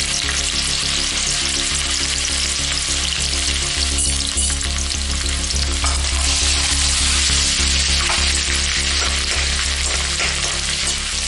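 Chopped garlic and ginger sizzling in hot oil in a kadai, with a spatula stirring and scraping through them in the second half.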